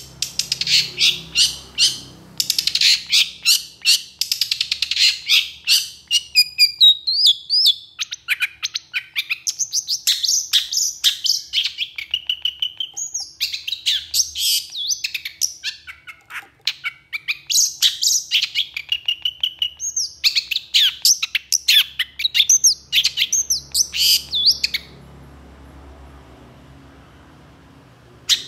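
Long-tailed shrike (pentet) singing a long, fast song: a dense run of rapid sharp chattering notes, then repeated whistled, slurred phrases about every two seconds, stopping about 25 seconds in.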